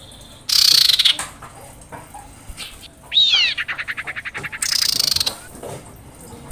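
Female common iora calling: a harsh, raspy call, then a down-slurred whistle running into a fast, even trill, then another harsh rasp.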